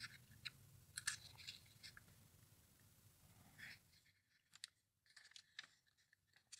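Faint crinkles and ticks of glossy catalog paper under the hands, with a soft swish about three and a half seconds in and a page being turned near the end.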